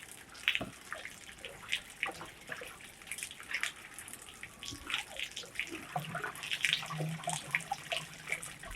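Water splashing and dripping in irregular small bursts as raw goat skins are rinsed and worked by hand. A faint low hum joins in about six seconds in.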